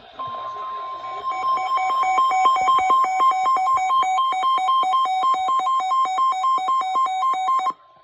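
NOAA Weather Radio warning alarm tone, a steady 1,050 Hz beep that signals a warning (here a severe thunderstorm warning). About a second in, a louder electronic beeping joins it, alternating rapidly between two pitches at several beeps a second. The beeping cuts off abruptly near the end, leaving the alarm tone faint.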